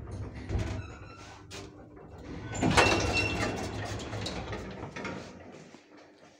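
1976 SamLZ passenger lift: knocks as the car stops, then, about three seconds in, its sliding doors open with a loud sudden rattle and a brief high whine. The low hum of the lift fades out near the end.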